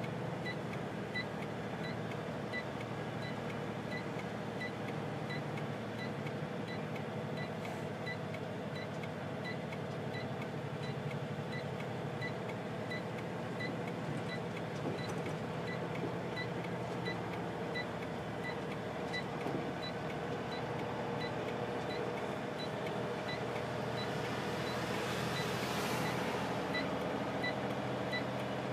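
Heavy truck's diesel engine running steadily, heard from inside the cab, with a faint short high tick repeating about twice a second. Near the end a rush of noise swells up.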